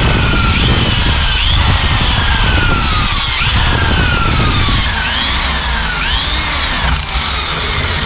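Power drill with a spade bit boring into the edge of a wooden door, running steadily under load, its whine sliding slowly down and now and then jumping back up in pitch as the bit cuts.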